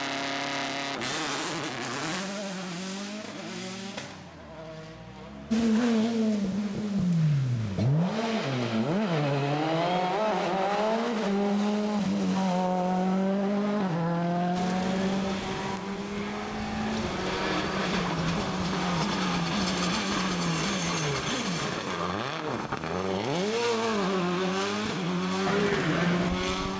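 Rally car engines at full throttle, pitch climbing and dropping again and again through gear changes and lifts, with abrupt jumps about five seconds in and again near the middle where one pass cuts to the next.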